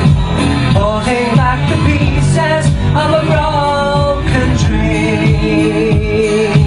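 A man singing a pop ballad cover into a handheld microphone over a recorded backing track.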